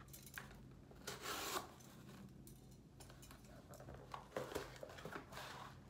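Faint rustling and scraping of packaging being handled inside a cardboard shipping box, loudest about a second and a half in, with a few light knocks near the end.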